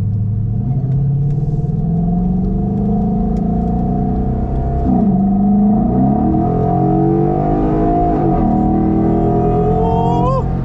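Ford Mustang GT 5.0 V8 with Borla Pro XS mufflers accelerating hard, its exhaust note climbing in pitch. About five seconds in the pitch drops at a gear change, then it climbs again.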